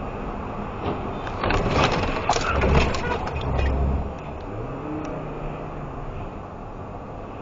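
Road and engine noise inside a truck's cab at highway speed, with a louder stretch of low rumble and rattling clicks from about one and a half to four seconds in. Just after that the engine's pitch rises and holds for about a second.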